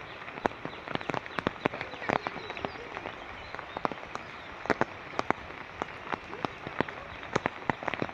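Rain falling steadily, an even hiss with many irregular sharp drips and drops striking close by.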